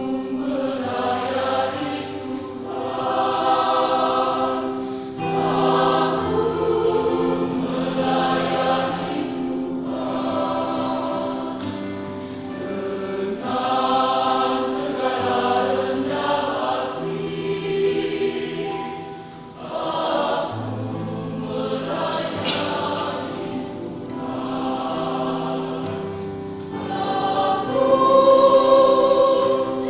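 Church choir singing a hymn in parts, in phrases a few seconds long over steady low held tones.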